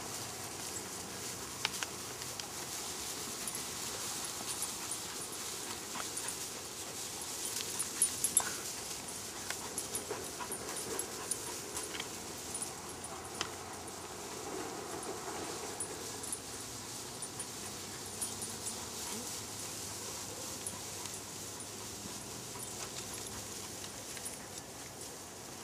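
A kelpie whimpering and panting as it works goats, with a few sharp clicks scattered through.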